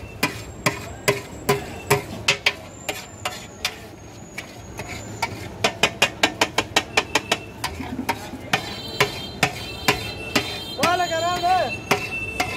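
Steel spatula clanking against a large iron karahi in quick runs of strikes, about three to four a second, as meat and tomato are chopped and stirred in the pan, with a pause a few seconds in.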